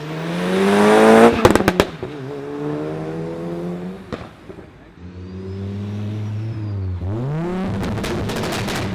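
Tuned car engine revved hard, its pitch climbing, then a few sharp exhaust bangs as the throttle is released. After running on, it is revved up quickly again near the end, with a rapid string of exhaust pops and crackles.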